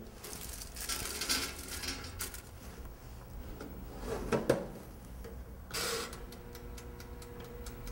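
Countertop toaster oven being loaded and started: rustling and handling, a sharp metal clunk of the rack and door about halfway through, then the dial is turned and the oven runs with a faint steady hum and the light ticking of its timer.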